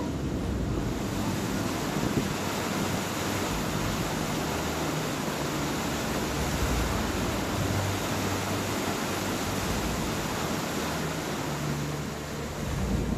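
Floodwater in a swollen river pouring over a weir: a steady, rushing roar of churning water. Wind buffets the microphone, adding an uneven low rumble.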